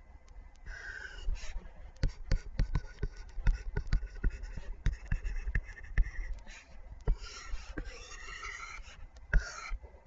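Pen stylus tapping and scratching on a drawing screen while drawing lines and handwriting, heard as a string of sharp, irregular taps, thickest from about two to seven seconds in.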